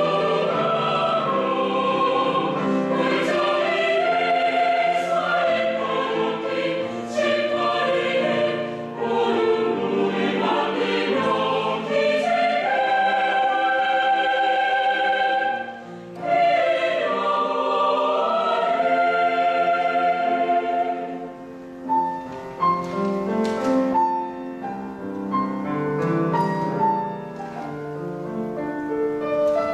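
Choir singing a Korean choral art song with piano accompaniment. About two-thirds of the way through the voices stop and the piano plays on alone in separate notes.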